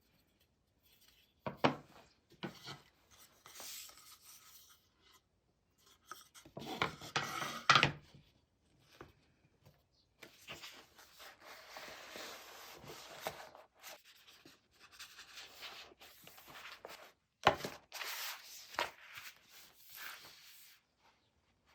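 Hand work on wood: uneven rubbing and scraping strokes, like sanding or rasping, broken by a few sharp knocks.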